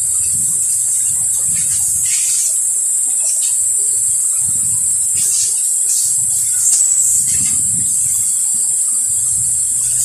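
A loud, steady, high-pitched hiss that does not let up, with low uneven rumbling underneath and a few light clicks around the middle.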